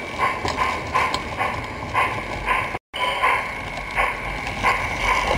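Live-steam garden-scale locomotive chuffing as it runs, its exhaust beats coming regularly about three times a second over a steady hiss. The sound cuts out for an instant a little past the middle.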